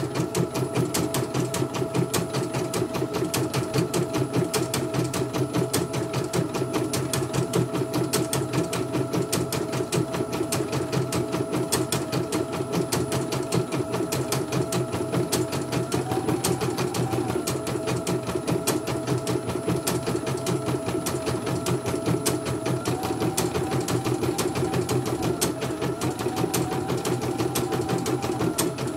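CNY portable embroidery machine stitching at speed: a rapid, even needle clatter over a steady motor whine that shifts up in pitch a little a couple of times in the second half. It is running smoothly, without jerking, after being serviced for heavy, stiff running.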